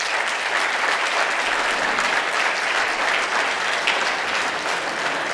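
A room of seated guests applauding steadily.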